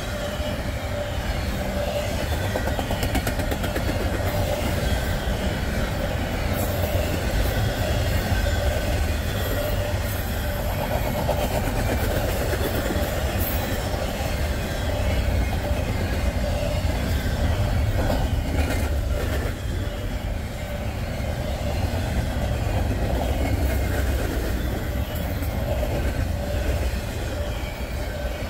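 Norfolk Southern double-stack intermodal freight train rolling past steadily: a continuous low rumble of steel wheels on rail, with a few scattered clacks as the well cars pass over the rail joints.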